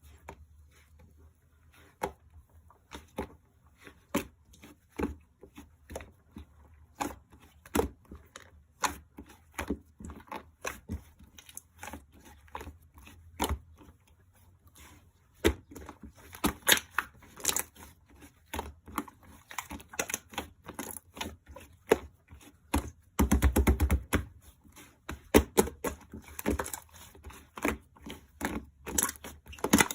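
White slime being squeezed and poked, giving sharp clicks and crackling pops from trapped air; sparse clicks at first, growing denser, with a fast run of crackles a little past the middle.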